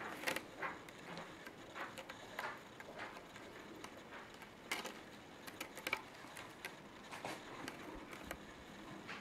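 Irregular light ticks and rustling as a Bengal kitten is handled and moves about on a fleece blanket and sisal scratching post, with the sharpest clicks just after the start and twice around the middle.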